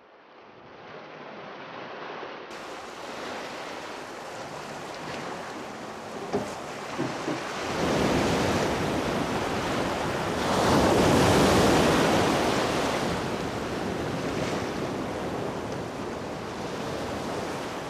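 Small waves breaking and washing up a sandy beach in a steady rush, swelling loudest a little past the middle, with wind buffeting the microphone.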